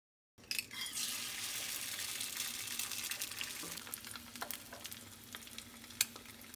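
An egg frying in a small nonstick pan, a steady sizzle with scattered small pops. It starts sharply about a third of a second in and fades a little toward the end.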